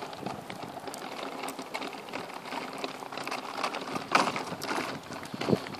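Pet stroller rolling over rough pavement: a steady rattle of the wheels and frame, full of small clicks, with a louder bump about four seconds in.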